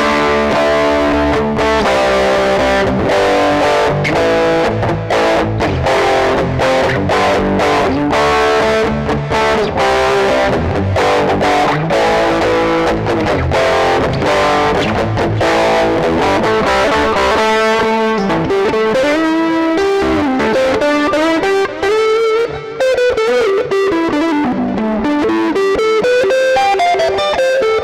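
Electric guitar played through distortion: fast, choppy rhythm chords for the first two-thirds, then a sustained lead line with string bends.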